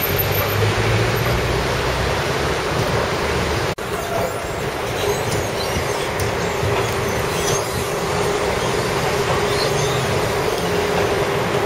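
Steady running noise heard from inside a moving vehicle, with a low rumble at first and a steady whine in the later part. The sound breaks off for an instant about four seconds in, then resumes.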